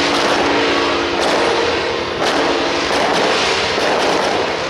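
Loud, unbroken din of temple-procession percussion, crashing cymbals and gongs with drums, over a steady ringing tone.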